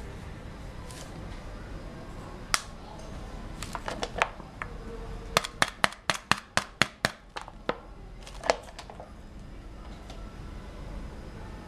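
Sharp plastic clicks and crackles from a plastic cup with a heat-sealed film lid being handled and pressed. A rapid run of about a dozen clicks comes in the middle, at roughly four a second.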